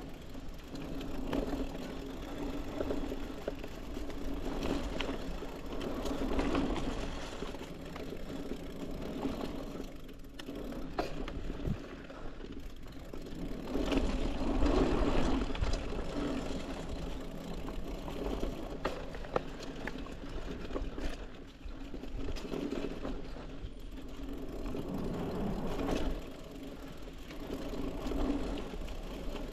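Trek Marlin 6 hardtail mountain bike riding over dirt singletrack: tyres rolling and crunching on the trail, with sharp clicks and rattles from the bike over bumps and low rumble on the microphone. It swells and fades with the terrain, loudest about fourteen to sixteen seconds in.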